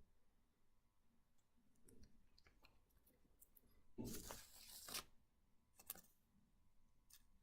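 Comic books being handled: a brief rustle of plastic or paper about four seconds in, lasting about a second, then a sharp click and a few faint ticks.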